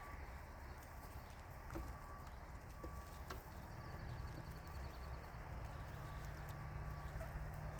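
A flock of chickens shut in their coop: faint, low sounds from the birds, with a few scattered light clicks of pecking or scratching.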